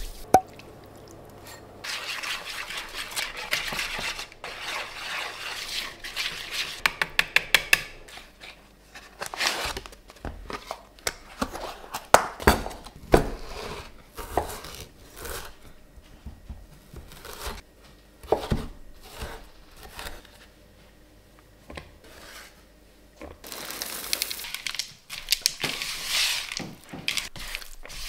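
Food-prep handling sounds on a wooden chopping board and in a mixing bowl. First a stretch of scraping and rustling with a quick run of clicks, about five a second, then scattered knocks of utensils. Near the end a spatula scrapes through thick chocolate dough in a bowl.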